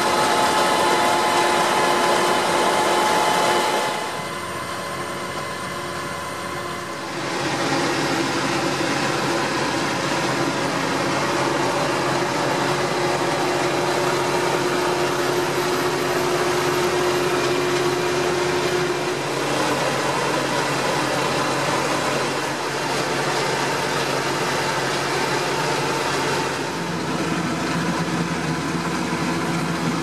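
Tractor engine and trailed four-row AVR Apache potato harvester running steadily while lifting potatoes, its elevators and webs adding a constant mechanical clatter. The mix of engine and machinery changes abruptly several times, with a quieter stretch from about 4 to 7 seconds in.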